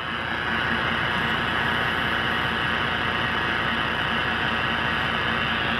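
Steady hiss of receiver static from a Uniden Bearcat 980SSB CB radio's speaker on lower sideband, with a faint low hum underneath, while no station is transmitting.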